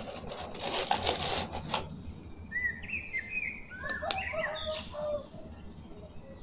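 Clear plastic blister tray crinkling as a toy action figure is pulled out of it over the first two seconds, then several short bird chirps.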